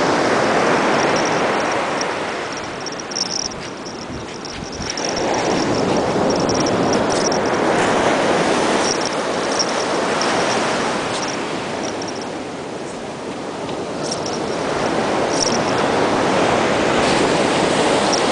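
Ocean surf washing ashore, a steady rushing noise that swells and ebbs slowly a few times.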